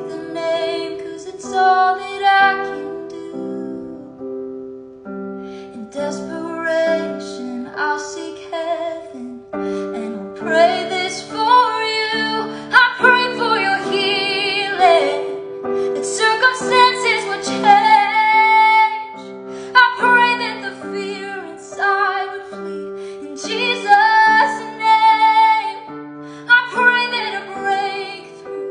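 A woman singing a Christian worship song over piano accompaniment, with sustained melodic vocal lines above held piano chords.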